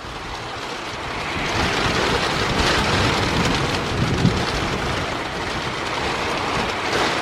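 Heavy rain driven by strong storm wind, a steady loud rush that swells over the first couple of seconds as the gusts arrive and then holds.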